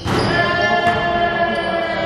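Music: a held chord of steady tones that comes in suddenly and stays level for about two seconds.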